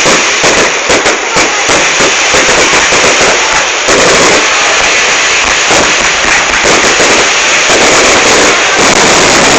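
Fireworks going off in a loud, dense barrage of rapid bangs and crackles with no pause.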